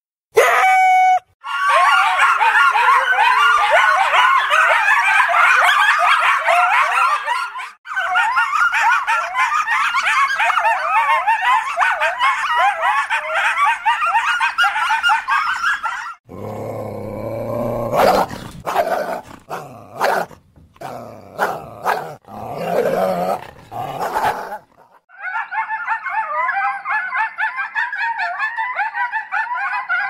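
Coyotes calling: a pack's chorus of many overlapping high, wavering yips and howls. About sixteen seconds in it gives way to a stretch of lower, separate barks with sharp onsets. The chorus returns near the end.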